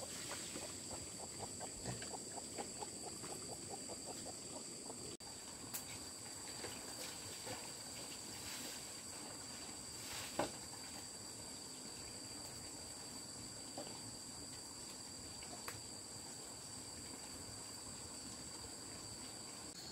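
Insects droning in two steady high tones, with a rapid run of low pulses in the first few seconds and a few faint scattered clicks.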